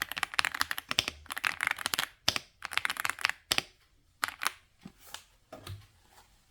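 Typing on the Epomaker x Aula F99 mechanical keyboard: a fast run of key clicks for about two seconds, then scattered single keystrokes that stop shortly before the end.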